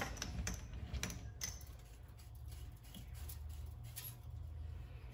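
Light clicks and taps of metal lathe parts being handled by hand, a few in the first second and a half, then faint scattered ticks over a low steady hum.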